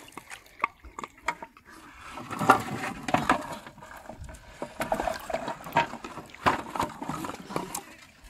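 Water splashing with irregular knocks and rattles from a plastic-bottle-and-bamboo float trap being handled.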